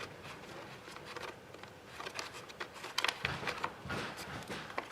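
Irregular light clicks and knocks of hands handling parts and tools on a generator being taken apart, with a couple of duller thuds about three and four seconds in.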